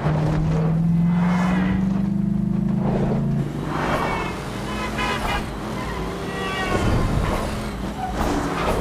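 A low horn sounds in one long blast for about three and a half seconds. Then cars rush past at speed with their engines revving.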